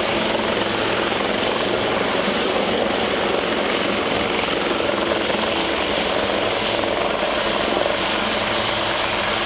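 Two Westland Lynx helicopters with their twin Rolls-Royce Gem turboshafts flying together, a steady rotor and turbine noise that holds an even level throughout.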